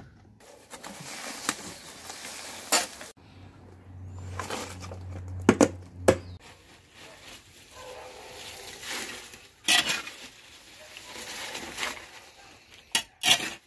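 A small shovel digging and turning a compost pile of soil and dry leaves: scraping and rustling, with a few sharp knocks of the blade, a pair of them about halfway through and two more near the end.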